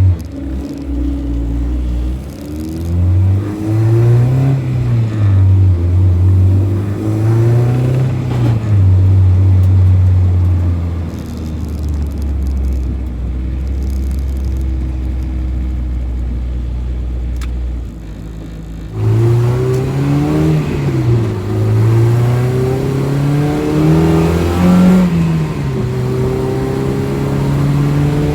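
K20A2-swapped Honda Civic's four-cylinder engine pulling through the gears: the engine pitch climbs and drops at each shift, holds steady for several seconds in the middle, dips briefly, then climbs through more shifts.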